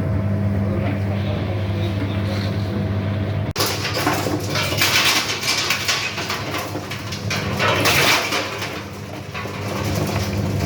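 Nutmeg-cracking machine's motor running with a steady hum. About three and a half seconds in it breaks off abruptly into a dense, irregular rattling clatter of hard nutmeg seeds and shells, rising and falling in surges.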